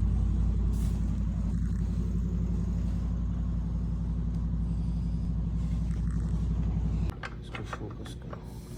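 A loud, steady low mechanical hum, like a running motor or engine, that cuts off suddenly about seven seconds in. A few sharp clicks and knocks follow.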